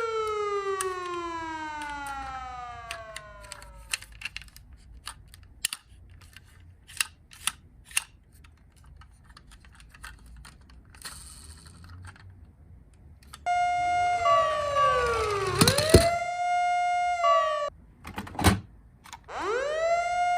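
Toy fire engine minicar's siren: a wail winding down and fading over the first few seconds, then scattered sharp clicks and taps, then the siren sounding again about 13 seconds in, dropping steeply in pitch and gliding back up near the end.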